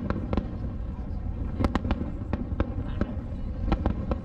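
Aerial firework shells bursting one after another: a string of sharp, irregularly spaced bangs over a continuous low rumble from the barrage.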